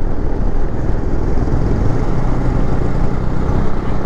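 Motorcycle engine running steadily at cruising speed, heard from the moving bike, mixed with rushing wind and road noise.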